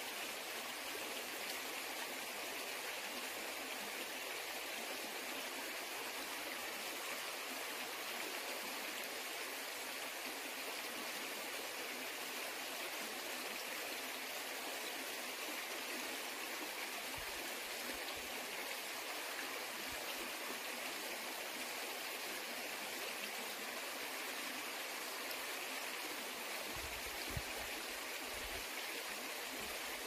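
Mountain stream water flowing steadily, an even rushing hiss without pauses.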